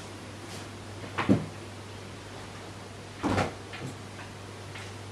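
A few dull knocks over a steady low hum: a quick double knock about a second in and a single knock a couple of seconds later.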